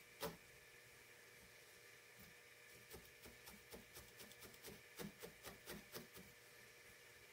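Felting needle stabbing repeatedly into wool: faint quick pokes, about four or five a second, through the middle, with a single slightly louder tap just after the start.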